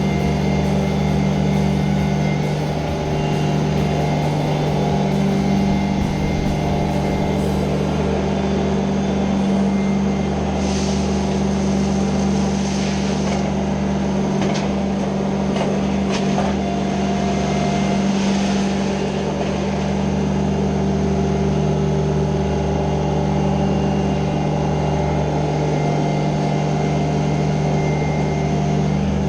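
Ditch Witch SK850 mini skid steer's engine running steadily under throttle, with a few brief hissing or scraping sounds about halfway through.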